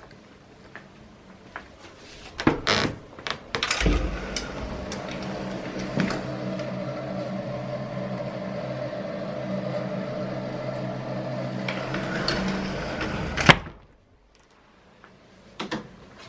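A few knocks and clicks, then a steady machine hum for about nine seconds that cuts off suddenly with a click.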